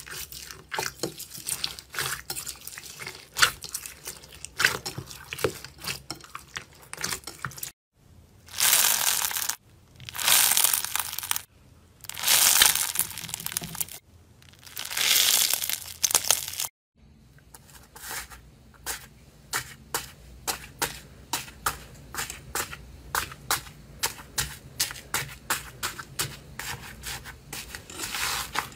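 Hands squishing bead-filled slime, with a crackle of small clicks. Then four long wet squeezes of a soaked sponge, each a hissing gush of about a second and a half. Then thick slime kneaded by hand, with fast sticky popping clicks, several a second.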